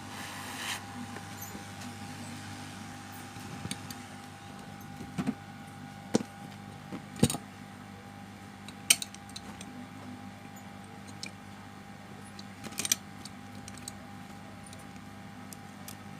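Scattered light clicks and taps of small metal repair tools against a keypad mobile phone's circuit board, over a steady electrical hum.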